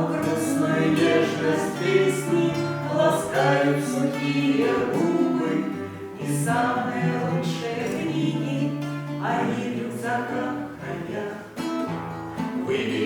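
A man and a woman singing a Russian bard song together, accompanied by acoustic guitar.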